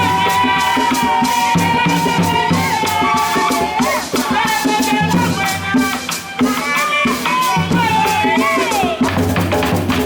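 Background music: a held melody that slides in pitch at the ends of phrases over a fast shaker rhythm and a pulsing bass beat.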